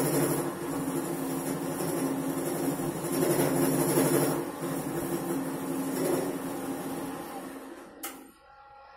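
Drill press motor running a valve-seat cutter into a Kawasaki KLX150 cylinder head, a steady hum. It dies away near the end and a single sharp click follows.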